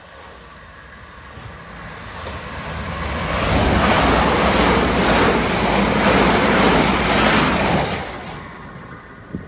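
Southern Class 377 electric multiple unit running through the station at speed without stopping: a rushing noise of wheels on rail and air that swells, holds loud for about four seconds, then fades.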